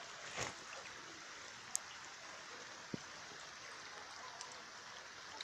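A steady, even hiss of water, with a few faint clicks and taps.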